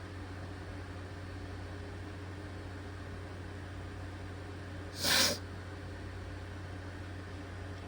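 Steady low background hum, broken once about five seconds in by a short, sharp hissing burst of under half a second.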